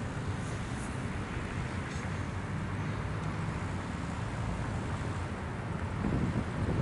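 Wind buffeting the microphone over a steady low outdoor rumble, swelling slightly near the end; no siren is sounding.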